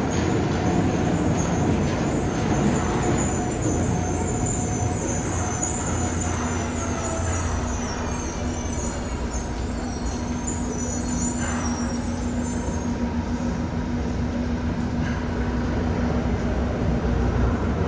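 Yokohama Municipal Subway 3000A-series train pulling into an underground station and slowing to a stop: steady rumble of wheels on rail, with a high whine that falls in pitch as it slows and dies away about thirteen seconds in.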